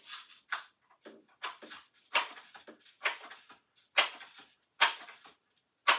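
A BB gun being fired in quick succession: about eight short, sharp shots, roughly one a second.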